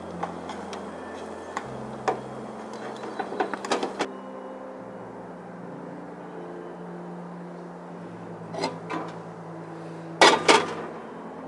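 Metal cooking utensils and a frying pan clicking and knocking on a camp stove: a run of light clicks in the first few seconds, then a few louder knocks near the end.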